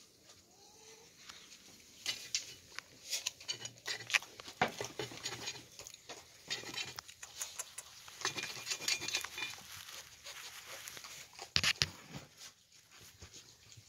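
Young striped skunks nosing and pawing right at the microphone: a run of quick scratchy clicks and rustling, loudest near the end.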